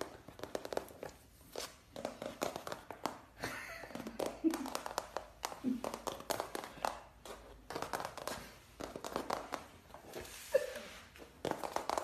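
A kitten playing with toys on a wooden floor: many short taps, scuffs and rustles from its paws and the toys, with a person's voice heard now and then.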